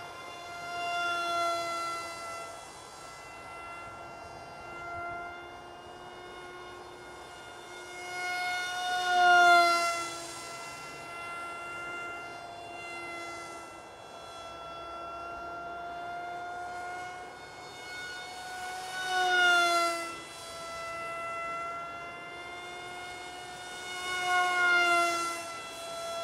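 Whine of the electric motor and propeller of a small RC model F-117 Nighthawk in flight. The whine holds a steady pitch, then swells and drops in pitch each time the plane passes close: three times, about a third of the way in, about two thirds of the way in, and near the end.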